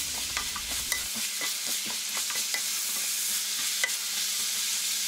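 Chopped carrots, leek and celeriac sizzling in olive oil in a stainless steel pan over high heat, while a spoon stirs them and clicks against the pan. A low steady hum comes in about a second in.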